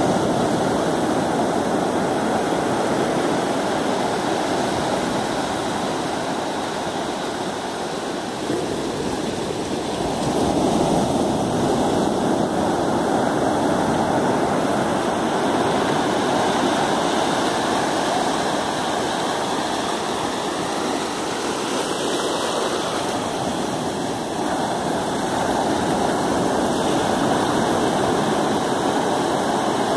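Sea surf breaking close by and foam washing over the sand: a steady rush of water that swells and eases as the waves come in.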